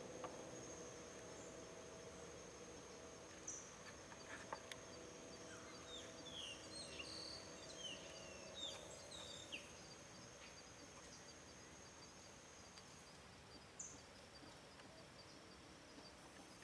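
Faint outdoor ambience: a steady, high-pitched insect trill, with a small bird's short falling chirps repeated several times through the middle.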